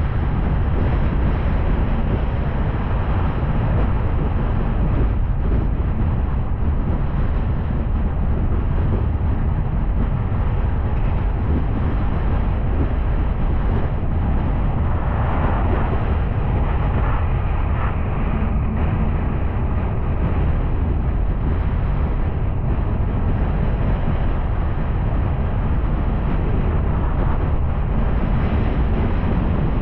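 A car driving: steady low rumble of road and engine noise, with some wind on the microphone.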